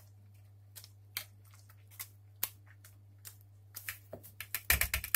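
Wire whisk stirring an egg, mushroom and cheese mixture in a bowl, the wires clicking now and then against the bowl. Near the end the clicks come quicker, with a low thump.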